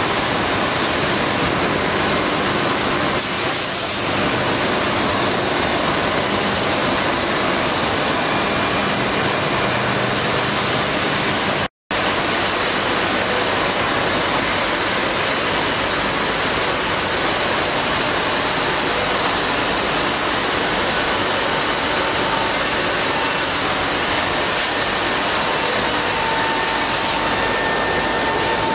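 WEEKE Optimat BHX 560 through-feed CNC drilling machine running: a steady, even rushing noise, with a faint whine coming in over the last several seconds. The sound drops out for an instant about twelve seconds in.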